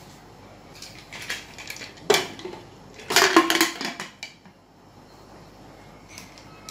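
Aluminium pressure cooker lid being set on and closed: a run of metal clanks and clatters, loudest about two seconds in and again about three seconds in, with a short metallic ring.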